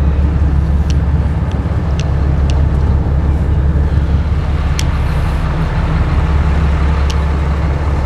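Small harbour tug's engine running steadily under way, a loud, constant low drone with water and air noise over it and a few faint ticks.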